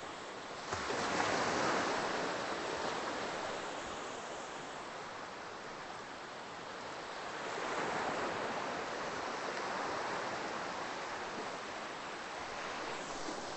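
Ocean surf washing up on the beach, with two waves breaking, one about a second in and another around seven or eight seconds in, each swell fading away slowly.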